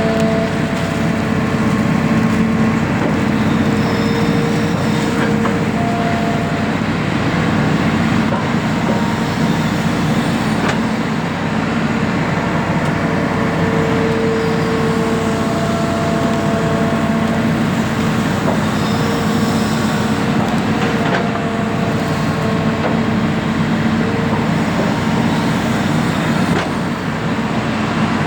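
Excavator engine running steadily: a loud continuous drone with a low hum whose pitch shifts a little now and then.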